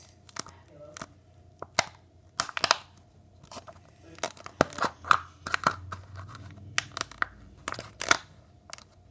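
Small plastic slime container's cap being pressed and twisted on, giving irregular sharp clicks and crackles. The cap won't seat, and the owner thinks foam beads in the rim are blocking it.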